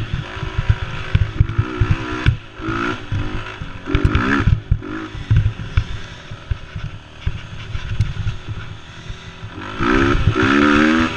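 Mini quad's small engine revving up and down in bursts as it is ridden over a rough dirt trail, with a longer, louder rev near the end. Low thumps and rattling from bumps and wind on the mount run underneath.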